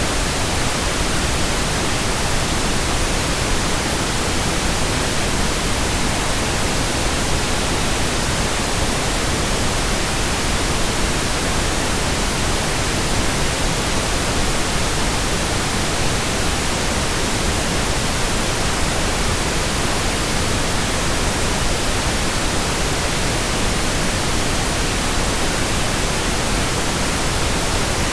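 Steady synthetic white noise: an even, unchanging hiss spread across the whole range from low to high, played continuously as a sleep sound.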